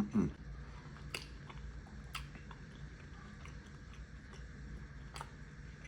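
A person chewing soft food close to the microphone, with scattered wet mouth clicks and smacks. A brief louder mouth sound comes at the very start.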